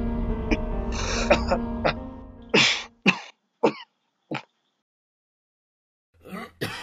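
A man coughing in a fit of six or seven hacking coughs and throat-clearings, about half a second apart, over soft background music that fades out about three seconds in.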